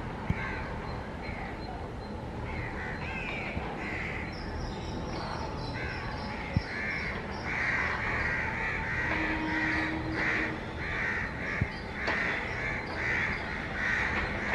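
Crows cawing again and again, the harsh calls coming thicker and louder from about halfway through, over a low background hum.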